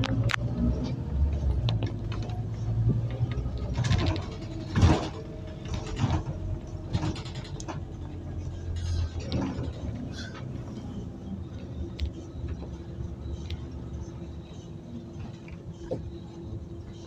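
Interior of a moving Scania OmniCity city bus: the engine runs with a steady low drone, with scattered rattles and knocks from the body, the loudest about five seconds in.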